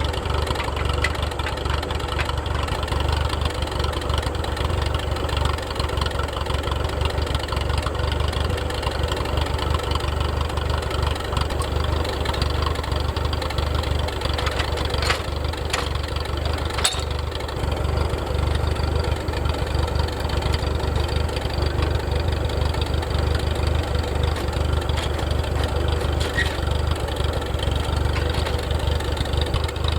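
Tractor engine running steadily at an even idle-like speed, with two brief sharp clicks about halfway through.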